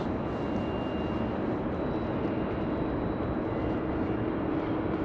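Steady outdoor background noise, a continuous rumble with a faint hum and no distinct events.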